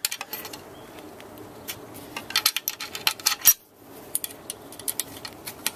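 Metal clinking and rattling as the small oxyacetylene set's metal trolley is handled. A cluster of clinks runs between about two and a half and three and a half seconds in, ending in one sharp clank.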